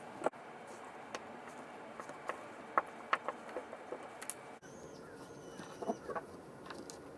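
Scattered light clicks and taps of small hard parts being handled and set down, irregular and several a second at times, over a steady low hiss.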